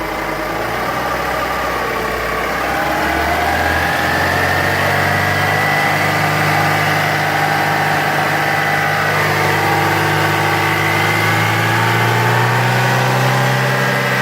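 JAC J3 car engine idling just after starting, with a steady whining hum over it, like a fan or a buzz, which the owner asks about as possibly abnormal. The engine note rises a few seconds in and then holds steady.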